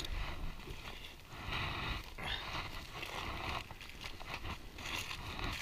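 Aluminium foil crinkling in irregular spells as a foil packet on a campfire is pulled open with a fork and knife, over a steady low rumble.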